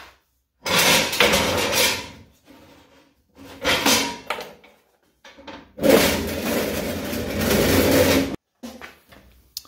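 A benchtop table saw on a steel leg stand being flipped upright and set down on a concrete floor: metal legs scraping and knocking in several separate clatters, with a longer scrape of about two seconds near the end that stops abruptly.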